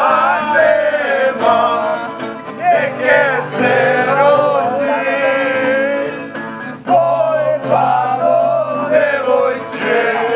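Music: a song with singing over guitar accompaniment.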